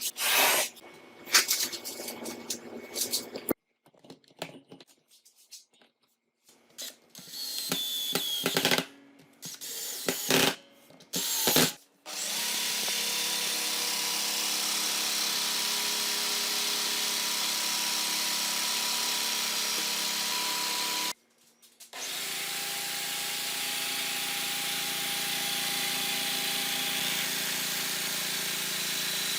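Electric drill powering a homemade tool: first a series of clicks and handling knocks, then the drill motor runs steadily, stops briefly about two-thirds of the way through, and starts again.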